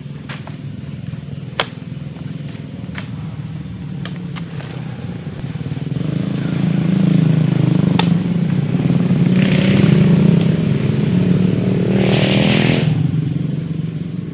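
A motor vehicle's engine running, growing louder from about six seconds in. There are a few sharp clicks in the first five seconds and two short noisy bursts near the end.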